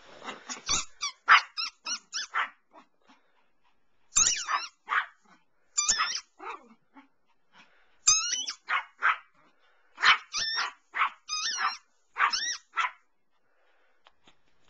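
Toy Yorkshire terrier barking: short, high-pitched yaps in quick runs of several with brief pauses between, stopping about a second and a half before the end.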